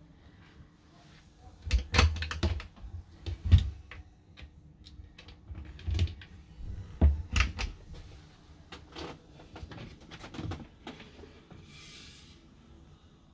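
Irregular clicks and knocks of motorhome cupboard doors, drawers and latches being opened and shut, loudest in the first half. A short hiss about 12 s in.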